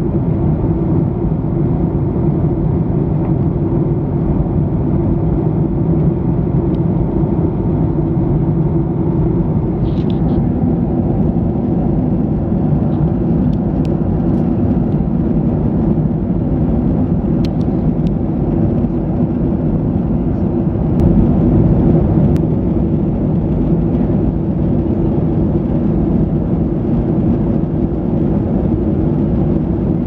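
Steady cabin drone of a Boeing 737-800 in flight, engine and airflow noise heard from inside the passenger cabin, with a few faint clicks.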